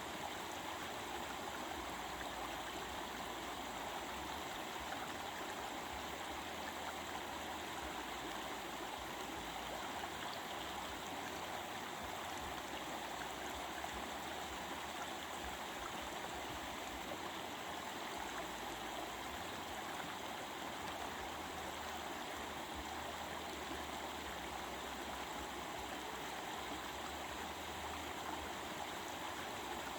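Stream of water running steadily over rocks, a continuous rushing and babbling.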